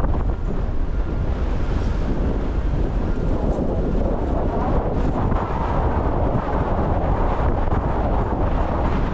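Steady low rumble and wash of a car driving on rain-soaked streets, with wind buffeting the microphone; the hiss grows a little stronger about halfway through.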